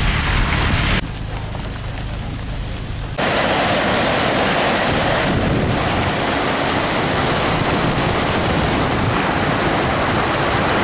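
Strong storm wind gusts, 60 to 80 mph, with rain, a dense steady rushing noise with wind rumbling on the microphone. The sound jumps in level abruptly about a second in and again about three seconds in.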